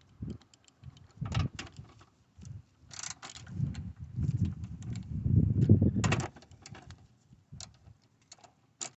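Irregular metallic clicks and clinks of a socket wrench and tools working a deep-set 10 mm air box bolt loose, with a few dull knocks of handling.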